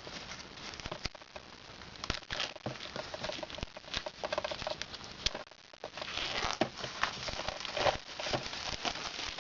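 Crinkling plastic shrink-wrap being torn and peeled off a sealed Blu-ray case by hand, with irregular crackles and small clicks that grow busier in the second half.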